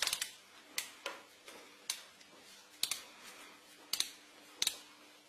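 Hand ratchet clicking on the connecting-rod cap bolts as they are run down snug, in single sharp clicks about once a second, some in quick pairs, over a faint steady hum.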